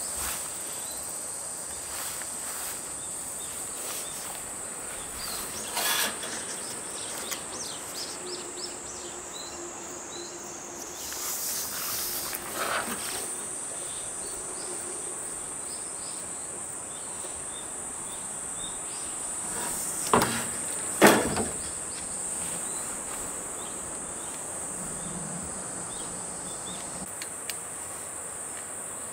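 A steady, high-pitched chorus of summer insects, with a few knocks and clatters of building materials being carried and handled; the loudest are two sharp knocks about twenty seconds in.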